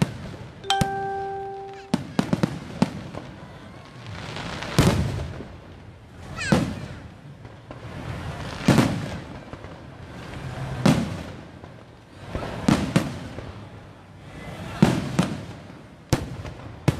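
Aerial fireworks going off in a steady sequence, a burst about every two seconds, each swelling up to a sharp peak and fading away, with a few separate sharp bangs near the start. A steady single-pitched tone sounds for about a second near the start.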